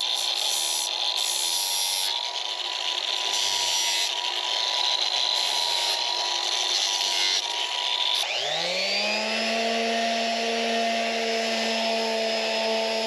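Cordless angle grinder with a sanding disc running against the edge of a plywood board, smoothing it. About eight seconds in it gives way to an electric palm sander, whose whine rises as it spins up and then holds steady.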